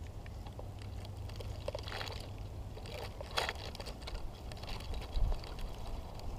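Short-beaked echidna feeding on ants in a rotting log: small clicks and scratchy snuffling from its snout probing the wood, with two louder hissing bursts about two and three and a half seconds in, over a steady low rumble.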